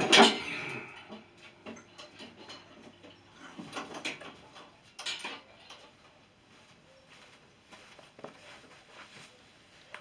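A stack of metal weight plates, about 600 kg hung on a chain from a triceps bar, set down with a loud metallic clank and rattle at the start. Scattered lighter clinks and knocks follow, with another sharp clank about five seconds in.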